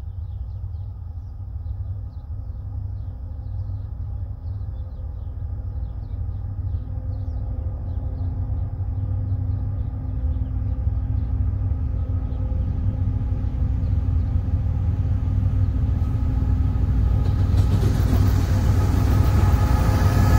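Diesel locomotives of an approaching freight train, a GE ET44AC leading a GE AC4400CW, with a low engine roar that grows steadily louder as they come closer. Near the end a hiss of wheel and rail noise rises as the lead unit arrives.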